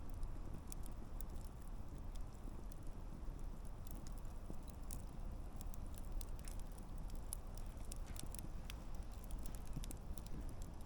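Wood campfire burning, a low steady rumble of flames with irregular sharp crackles and pops from the burning logs.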